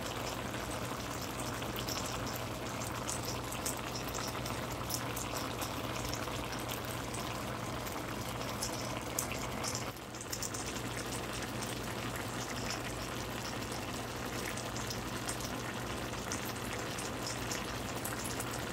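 A coconut-milk stew of squash, eggplant and green beans simmering in a frying pan: steady bubbling with many small pops and crackles, over a low steady hum.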